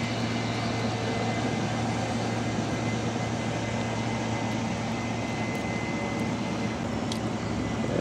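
Steady machine hum with a thin, high, constant whine, unchanging throughout.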